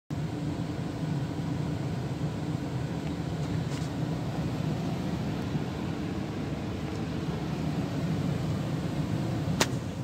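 ICP gas furnace running steadily, a low even hum of air and motor. There is a single sharp click near the end.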